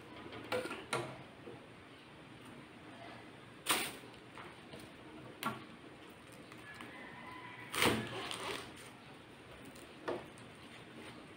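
Kitchen utensils knocking and clattering about six times, a second or two apart, over a faint steady hiss. The loudest knocks come about four and eight seconds in, the second followed by a brief rattle.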